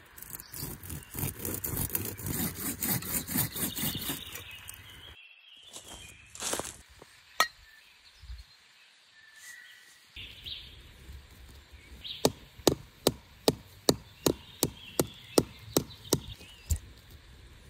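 A knife blade cutting into birch bark with quick rasping strokes for about five seconds. A single sharp click comes about seven seconds in. From about twelve seconds, a knife strikes into the birch trunk about a dozen times, sharp, even knocks roughly two a second.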